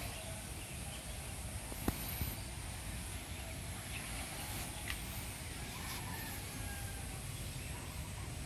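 Outdoor ambience: a steady low rumble with a sharp click about two seconds in and another near five seconds.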